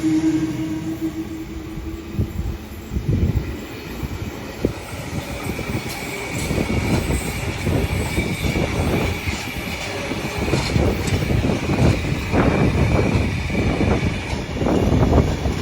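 Electric passenger train running through the station. A steady high whine sounds from about five seconds in, and the wheels clack over the rail joints more and more densely toward the end.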